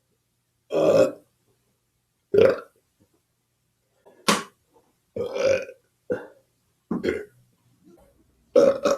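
A person belching about seven times in a row, some burps short and sharp, others longer.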